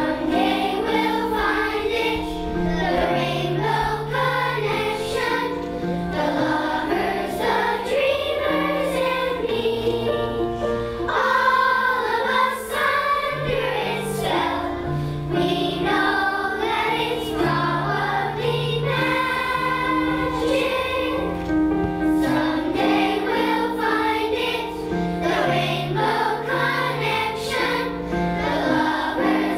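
Children's choir singing a song over an instrumental backing with a steady bass line.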